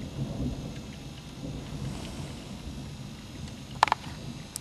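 Low rolling thunder rumble during a rainstorm. A sharp double knock comes near the end.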